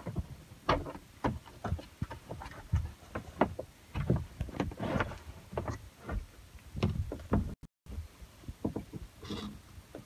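Plastic clicks, knocks and handling thuds as a camper van's roof-mounted control panel is pried out of its housing and its circuit board pulled down on its wires. The sound cuts out briefly about three-quarters of the way through.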